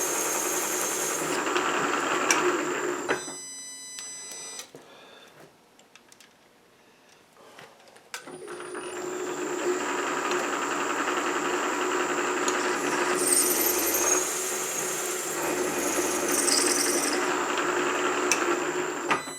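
Milling machine spindle running, with a counterbore cutting a screw pocket in stainless steel, a steady hum. It goes quiet about three seconds in and starts up again about eight seconds in.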